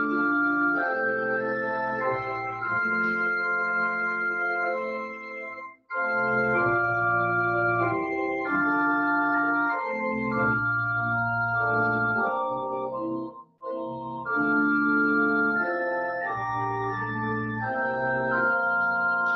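Organ playing held chords that change step by step, in phrases broken by two short pauses, one about six seconds in and one about thirteen and a half seconds in.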